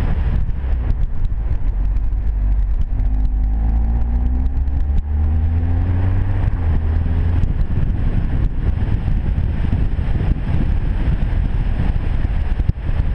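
Audi TT-S's turbocharged four-cylinder engine and exhaust driving, with a deep, steady rumble. About three seconds in it climbs in pitch as the car accelerates, with a brief drop near five seconds, like a gear change, before it climbs again.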